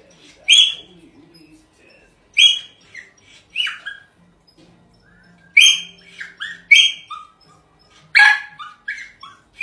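Small dog barking in a series of high-pitched barks, about six of them, each followed by a few shorter yips that fall in pitch.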